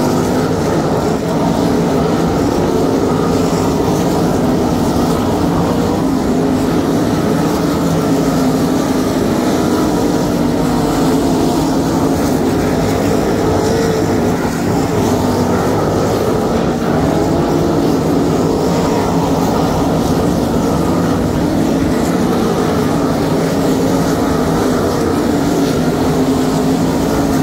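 A field of 305 sprint cars racing on a dirt oval, their 305-cubic-inch V8 engines running together in a loud, unbroken drone whose pitch wavers up and down as the cars go around the track.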